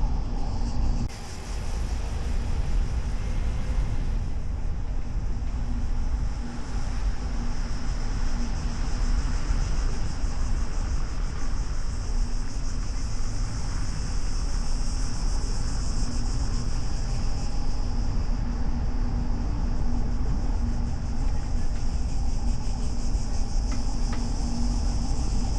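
A car driving, heard from a hood-mounted camera: steady road and wind rumble with a low hum, under a constant high-pitched buzz. The rumble drops briefly about a second in.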